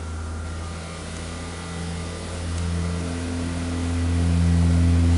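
Steady low hum of a running motor or engine, with a few steady tones over it, growing louder in the second half.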